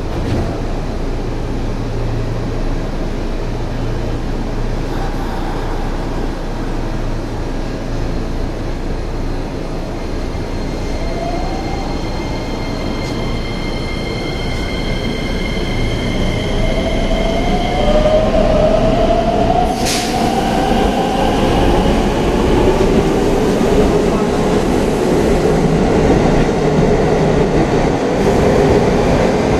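A JR West 225 series and 223 series electric multiple unit pulling away from a station. Its traction motors' inverter whine rises in pitch as it gathers speed, with a short sharp sound about twenty seconds in. The rumble of the wheels on the rails grows louder toward the end.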